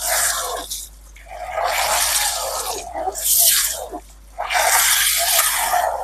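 Water splashing and spraying, churned up by a high-RPM hairdryer DC motor running submerged in a bucket. It comes in three stretches, dropping away briefly about a second in and again around four seconds.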